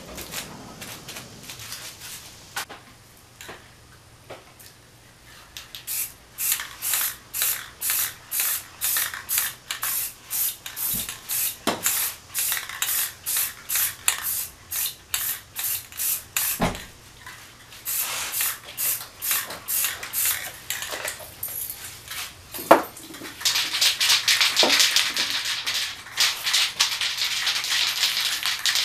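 Aerosol spray paint can hissing in short, quick bursts, about two or three a second, starting some six seconds in. A couple of sharp knocks come near the end, followed by one longer, nearly continuous spray.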